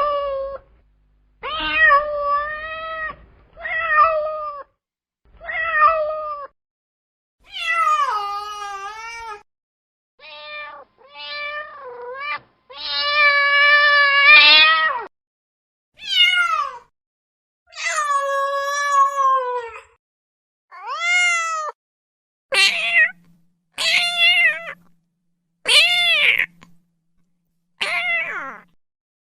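Domestic cat meowing again and again: about fifteen separate meows of varying pitch and length, one long drawn-out meow about halfway through, with silence between them.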